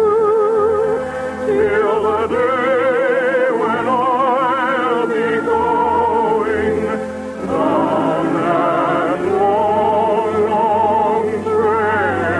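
Orchestral music with a singing voice carrying a slow melody with strong vibrato, part of a medley of First World War songs; the music dips briefly about seven seconds in, then swells again.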